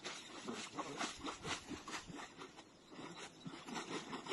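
Wooden paddle dipping and splashing in shallow water, an uneven run of short splashes as a small makeshift boat is paddled off from the bank.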